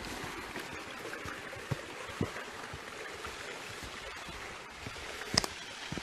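Steady rush of a rocky forest stream, with a few sharp knocks over it. The loudest knock comes near the end.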